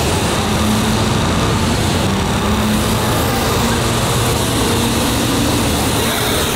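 Several small dirt bike engines running hard together, a steady buzzing with a dense noisy wash over it.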